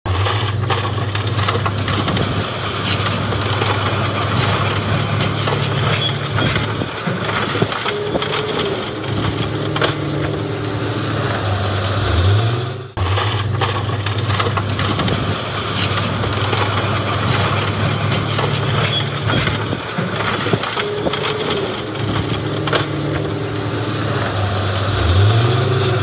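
Heavy diesel truck and machinery engines running steadily, with a rise in engine speed near the end of each pass. This is a looped recording that repeats about every 13 seconds.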